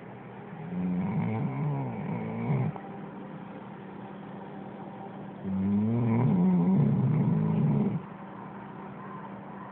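A dog snoring: two long, wavering snores of about two seconds each, some five seconds apart, over a steady low hum.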